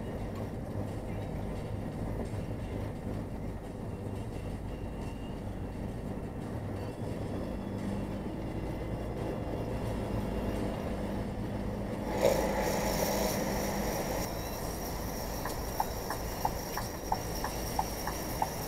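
A vehicle driving with snow chains fitted to its tyres, heard inside the cab as a steady rumble of engine, road and chains. Near the end come regular light ticks, about one and a half a second.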